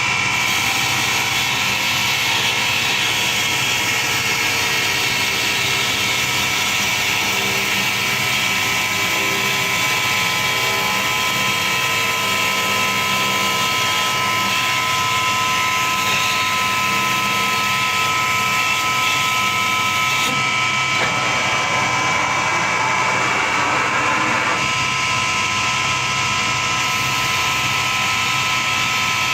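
CNC wood lathe running, with a steady high-pitched machine whine over a noisy hiss. The whine changes briefly about two-thirds of the way through, then returns.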